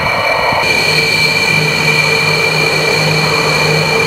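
A Sukhoi Su-34's twin turbofan jet engines running at taxi power: a steady high whine over a rushing noise.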